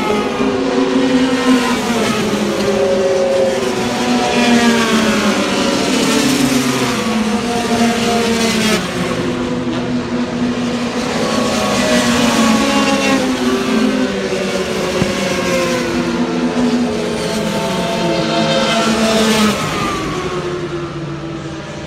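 Several four-stroke racing motorcycles accelerating down the straight. Each engine note climbs in pitch and drops back at every gear change, over and over, then fades near the end.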